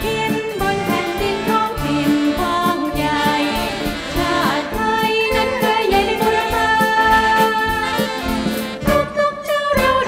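A group of four women singing a Thai song together, accompanied by a live big band with brass and orchestra.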